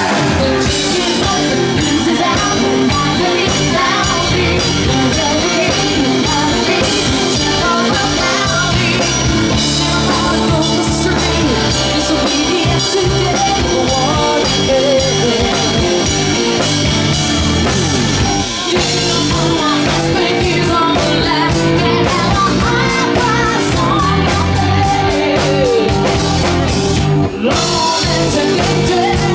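Live rock band playing an instrumental passage between sung lines: drum kit and electric guitar over a steady beat.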